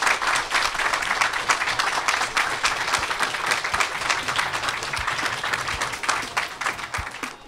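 Audience applauding: many hands clapping at once, thinning out and dying away near the end.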